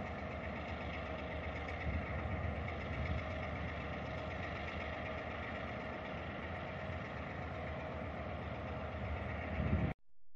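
Diesel locomotive engine running steadily at idle: a low rumble with steady tones over it, swelling briefly a couple of times. It cuts off abruptly near the end.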